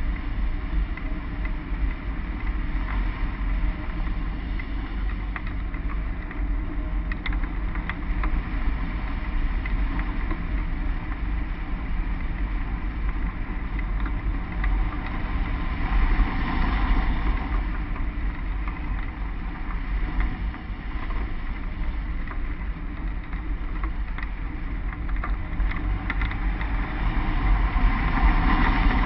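Wind noise from the hang glider's flight airflow buffeting a wing-mounted camera's microphone: a steady low rumble that swells about halfway through and again near the end.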